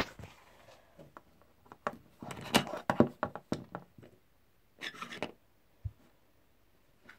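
Handling noise from small plastic toy figurines and a felt cap being moved about on a wooden surface: clusters of taps and rustles, with a single low thump about six seconds in.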